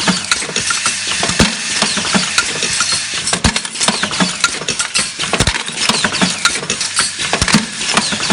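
Factory machinery running, with a dense clatter of irregular sharp knocks and an occasional heavier thump.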